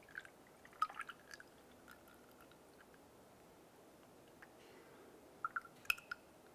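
Engine coolant poured from a jug through a plastic funnel into the coolant overflow tank: a faint pour with scattered short drips and clicks, bunched near the start and again near the end.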